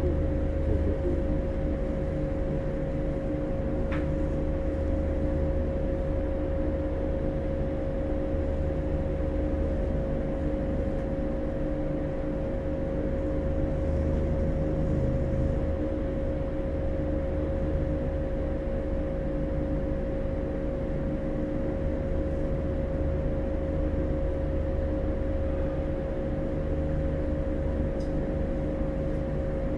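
Inside a JR 115-series electric car, KuMoHa 114-501, standing with its under-floor equipment humming: two steady, unchanging tones over a low rumble, with no rise in pitch from the traction motors. One sharp click about four seconds in.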